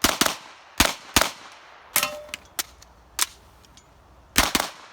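SIG MPX pistol-caliber carbine firing rapid shots, mostly in quick pairs, with short pauses while moving between targets. A short metallic ring follows one shot about two seconds in.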